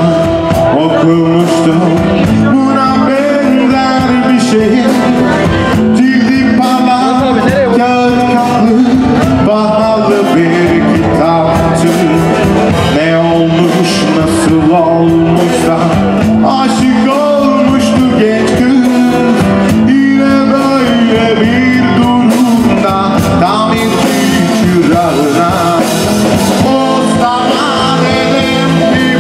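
Live band playing a song with vocals, with guitar and keyboard, loud and steady throughout.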